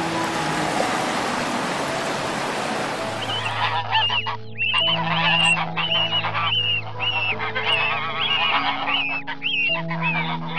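Ocean surf washing in for the first three seconds or so, then Canada geese and goslings calling: a quick run of short, high, arching calls, many in a row, over held notes of background music.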